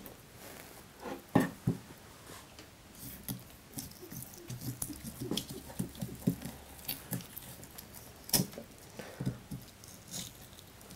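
Chef's knife cutting cooked T-bone steak away from the bone, with scratchy scraping strokes and small knocks as the blade works along the bone on a wooden board. Two sharper knocks stand out, about a second and a half in and again about eight seconds in.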